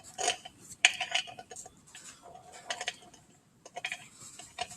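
Irregular clinks and knocks of metal objects being handled, some with a brief metallic ring.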